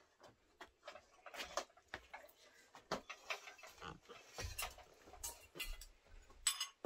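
Aluminium cooking pot, lids, bowls and a spoon being handled and set down: irregular light clinks and knocks, with a few dull thumps in the middle and a brighter ringing metal clink near the end.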